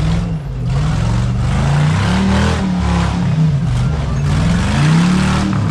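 Rock-crawler buggy's engine revving hard, its pitch climbing and falling over and over as the driver works the throttle up a steep, rocky dirt climb.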